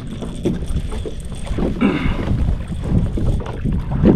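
Low, steady wind rumble on the microphone, with scattered light knocks.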